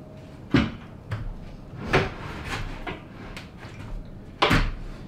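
Wooden knocks and thuds as a long piece of carlin lumber is shifted and knocked into position overhead: three loud knocks, the last one near the end, with lighter taps between.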